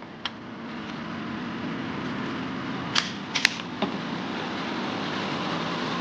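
Pickup truck engine running steadily as it pulls the travel trailer, with a few sharp clicks and knocks, the loudest about three and a half seconds in.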